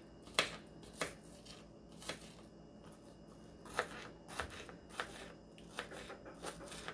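Kitchen knife slicing a red onion on a plastic cutting board: irregular sharp knocks of the blade hitting the board, roughly one to two a second.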